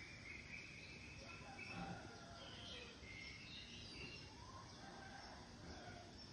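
Faint birds calling, short whistled chirps scattered throughout, over a low steady outdoor background noise.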